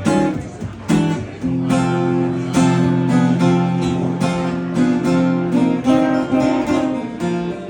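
Acoustic guitar strumming the instrumental introduction to a song: regular strummed chords.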